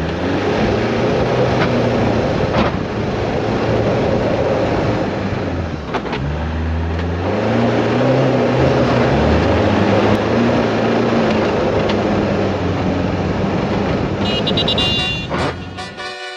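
Loud steady rushing noise over music with a slow, stepped bass line. Near the end, higher horn-like notes come in and the rushing noise cuts off abruptly, leaving the music.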